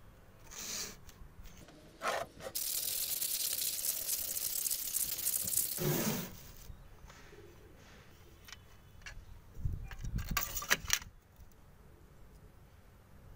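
Abrasive paper rubbed by hand over the rusty face of a thick steel disc, a steady scratchy rasp for a few seconds to clean the metal. Afterwards come scattered clicks and a short run of knocks as the heavy disc is handled on the wooden table.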